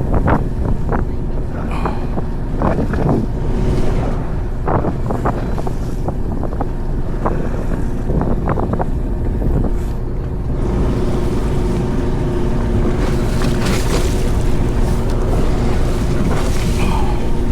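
Fishing boat's engine running steadily under wind noise on the microphone, with scattered sharp knocks and clicks in the first half. About ten seconds in, the wind noise turns into a broader, stronger hiss.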